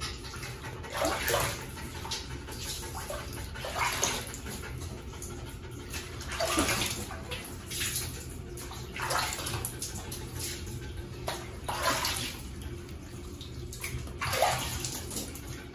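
Water from a hand shower running over a wet Shiba Inu puppy's coat in a bathtub as it is washed, with irregular splashing surges every second or two.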